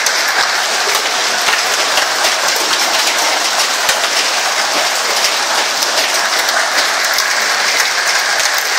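Heavy storm rain pelting down, a loud, steady, dense patter of drops.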